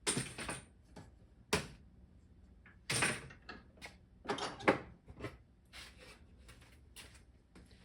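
Clamps being loosened and taken off a glued-up wooden piece: a string of sharp clacks and knocks, the loudest a little before five seconds in.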